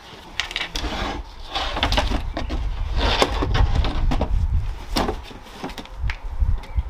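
Wooden board being handled on a table: a run of knocks, clatters and scrapes of wood against wood.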